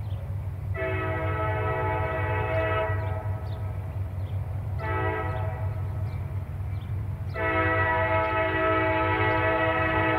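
EMD SD50 locomotive's multi-chime air horn sounding a grade-crossing signal: a long blast, a short one, then a long blast held past the end. Under it the locomotive's diesel prime mover runs with a steady low rumble, working hard under load. Faint dings of the crossing bell sound about twice a second.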